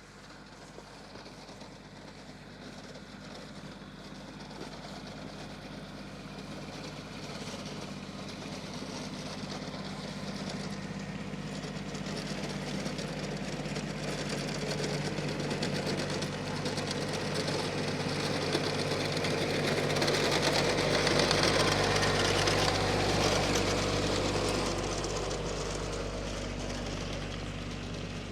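An engine running steadily, growing gradually louder as it comes closer, loudest about three quarters of the way through, then fading a little.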